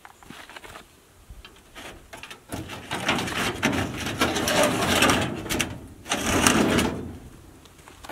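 Painted sheet-metal smoker door being pulled off its wooden pallet frame, rattling and scraping in two long stretches starting a few seconds in.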